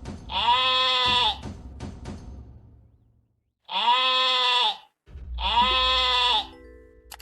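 A farm animal bleating: three loud, drawn-out bleats of about a second each, the pitch rising slightly and falling within each call.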